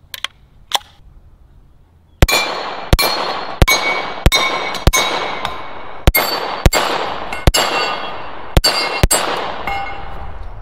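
VZ-61 Scorpion short-barreled rifle in .380 ACP firing about eleven single shots, roughly half a second to a second apart, each followed by the ringing clang of steel Texas Star target plates being hit. Two small clicks come before the first shot.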